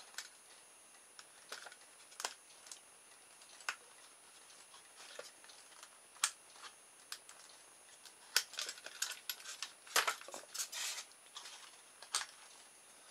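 Scattered light plastic clicks and taps of hand handling: a battery, its adapter and wires being fiddled with on a small plastic electric-motor kit, with a quick flurry of clicks about eight seconds in.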